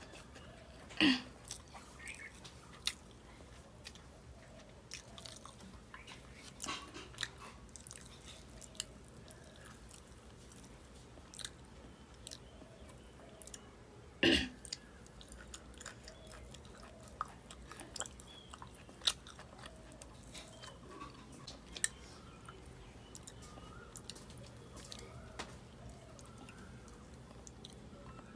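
A person chewing food with her mouth close to the microphone, eating by hand, with many small wet clicks. Two louder sharp sounds stand out, about a second in and about halfway through.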